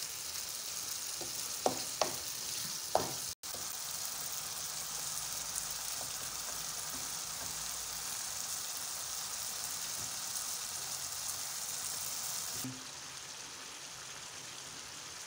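Tomato sauce sizzling in a frying pan on a gas burner as it is stirred with a wooden spoon, with a few sharp knocks of the spoon against the pan about two and three seconds in. The sizzling drops quieter near the end.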